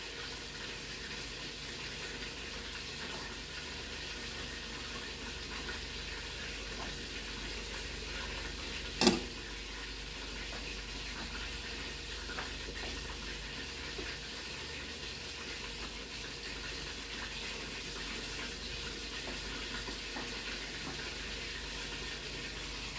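Food sizzling steadily in a frying pan on a gas burner, with one sharp clack about nine seconds in.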